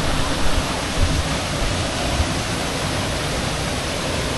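Waterfall: falling water makes a loud, steady rush, with a few low thumps underneath.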